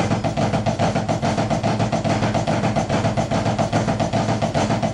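Drumsticks playing the Swiss Army triplet rudiment, a flam followed by two single taps repeated over and over, in a fast, even stream of strokes.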